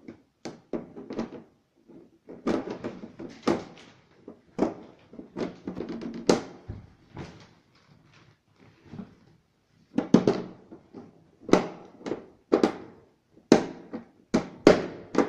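Irregular plastic knocks and clicks from an LED TV's casing being handled and pressed along the edge of its bezel, fitting the frame back in place. Quieter for a couple of seconds past the middle, then a quicker run of strong clicks about one a second near the end.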